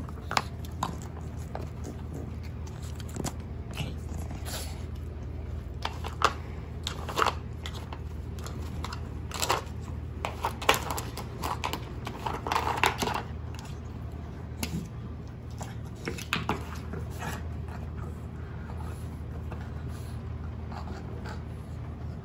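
Scattered plastic clicks, clacks and scrapes as a Boston Terrier puppy noses and paws the bone-shaped blocks of an Outward Hound Nina Ottosson Level 1 treat puzzle and chews, with the busiest run of clacks midway. A steady low hum sits underneath.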